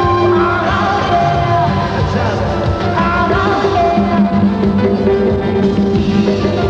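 A woman sings lead into a microphone over a live band, with an electric bass guitar in the mix.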